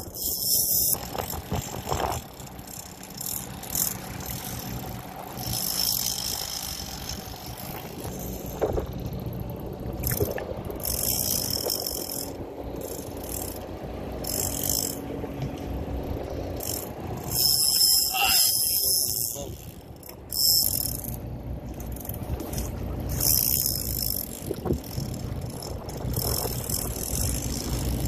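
Heavy conventional fishing reel being cranked in bursts against a hooked shark, its gears clicking, over the steady low running of the boat's engine and bursts of wind hiss.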